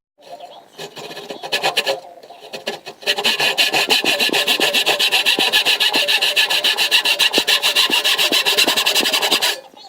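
Back saw cutting into wood, its teeth rasping in a quick, even rhythm: a short burst of cutting, then a longer steady run that stops just before the end.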